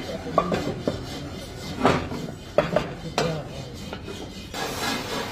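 Metal parts of a permanent casting mould for aluminium pots clanking and knocking as the mould is handled and closed, with about five or six sharp strikes over the first three and a half seconds. A steady hiss starts about four and a half seconds in.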